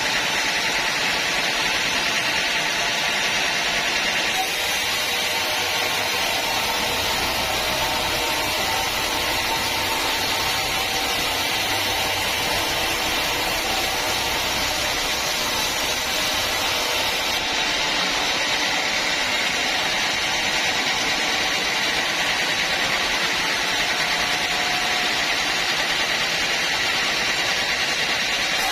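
Sawmill saw running steadily while cutting teak, a loud, dense, even machine noise with no breaks.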